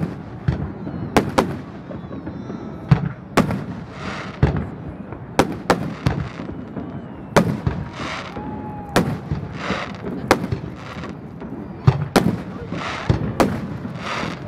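Aerial firework shells bursting one after another, about a dozen sharp bangs at irregular gaps of half a second to two seconds. Several bursts are followed by a crackling hiss.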